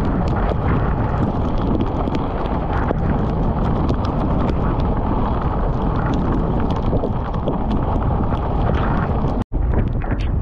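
Wind buffeting the microphone of a camera mounted on a wing-foiling wing, a steady low rumble, with a dense patter of sharp ticks from heavy rain striking it. The sound cuts out for an instant near the end.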